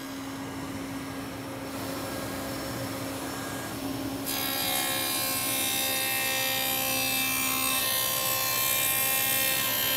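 Table saw with a dado blade running, then cutting a rabbet along the edge of a plywood panel from about four seconds in, the cut adding a loud, dense rasping over the saw's steady hum.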